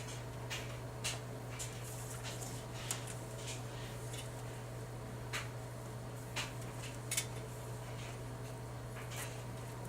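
Damp microfiber cloth wiped side to side across an LCD monitor screen: faint rubbing with short irregular squeaks and ticks, about one or two a second, over a steady low hum.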